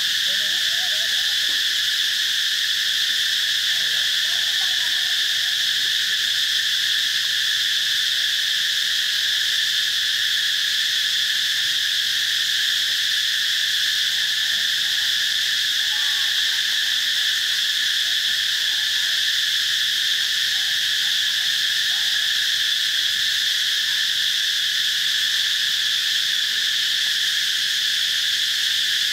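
A loud insect chorus buzzing steadily without a break, a high even drone with no pauses, and faint short calls now and then underneath.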